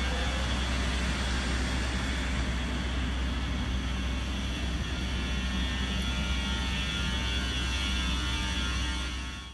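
Steady rumble and whooshing whir from a 12,000-horsepower electric freight locomotive, fading out just before the end.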